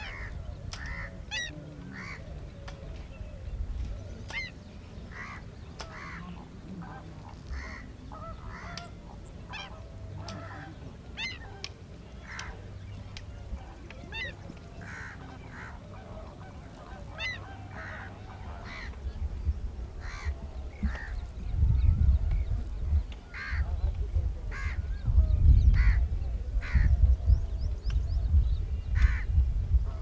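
Greater flamingos calling with short, goose-like honks, repeated every second or so. A low rumble grows loud about two-thirds of the way through and is louder than the calls.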